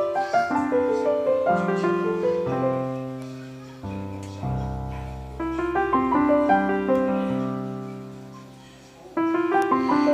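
Piano music: broken-chord phrases whose notes ring and fade, with a fresh phrase starting about four seconds in and again about nine seconds in.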